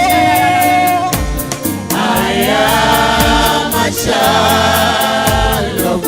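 Gospel worship song: voices hold long sung notes and chords over a band with a steady beat of about four ticks a second.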